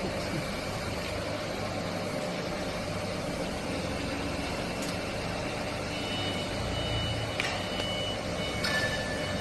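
Bamboo skewer slicing machine running with a steady mechanical hum, joined by faint thin high tones in the last few seconds.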